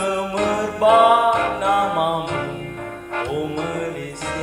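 A young man singing a Malay patriotic song solo into a microphone, with an instrumental backing track under the voice.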